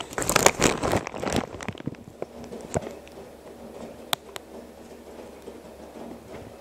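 Girbau commercial front-loading washer in its main wash: wet laundry tumbling and splashing in the drum for about two seconds, then a quieter low hum with a sharp click about four seconds in.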